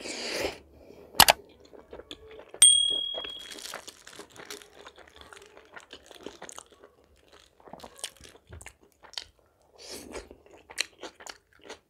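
Close-up eating sounds: a person biting and chewing crunchy food, with many small irregular mouth clicks. A sharp click comes just over a second in, and about two and a half seconds in a sharp clink rings on with a high tone for about a second.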